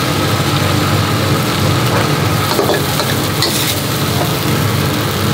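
Stir-fried noodles and vegetables sizzling in a wok over a gas burner, with a long metal spatula scraping and clinking against the wok as the food is scooped onto a plate, over a steady low hum.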